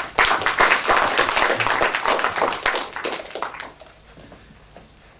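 Audience applauding, dying away after about three and a half seconds.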